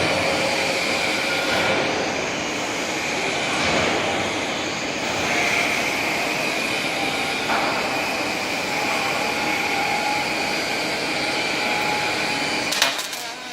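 Robotic welding cell at work: a steady, loud hiss with a constant high whine, and a sharp click near the end.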